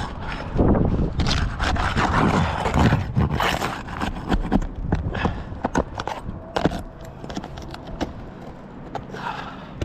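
Irregular scraping, clicking and knocking of a roofing tool and asphalt shingles as a shingle is worked loose and its nails removed.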